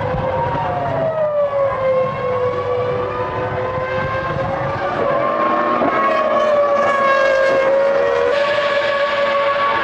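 Formula One cars' 3-litre V10 engines running at high revs, their high-pitched note dipping early on and then holding steady, with more engine sound building from about halfway through.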